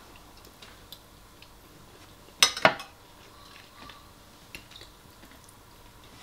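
Metal spoon clinking and scraping against a ceramic bowl while scooping rice, with a short cluster of loud clinks about two and a half seconds in and a few faint taps otherwise.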